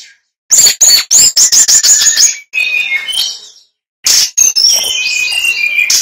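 Male brown-chested jungle flycatcher (sikatan rimba dada coklat) singing loudly. It gives a fast run of sharp chirping notes, then a lower warbling phrase, and after a short pause a longer phrase of warbles and whistles.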